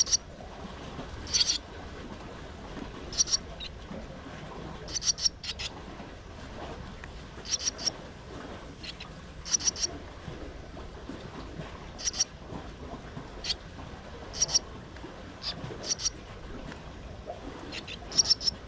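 Swallows chirping at the nest: short, high, sharp chirps in quick clusters of one to three, repeating every second or two over a steady background hiss.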